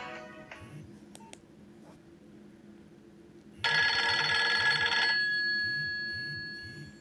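Nokia 2610 mobile phone ringtones: the end of one tune fades out in the first second, then about three and a half seconds in a new bright chime-like tone sounds, held for about a second and a half before ringing out.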